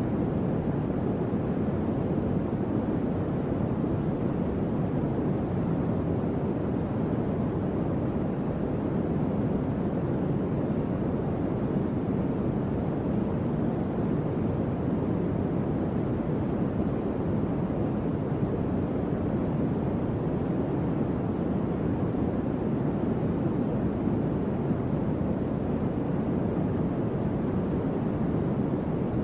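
Electric fan running steadily, a low, even rush of moving air with no pitch or rhythm.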